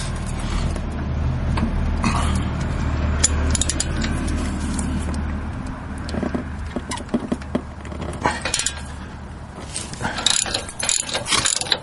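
Metal tool clinks and handling over a low steady rumble, then an 18 mm socket ratchet wrench clicking rapidly in the last couple of seconds as it works a brake caliper bolt.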